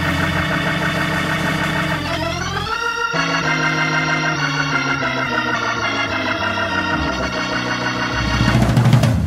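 Organ music holding sustained chords, with a rising glide about two seconds in.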